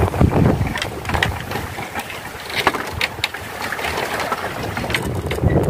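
Wind buffeting the microphone in the first moment, then open-sea ambience with scattered light clicks and taps from a fishing rod being handled and laid on a bamboo platform deck.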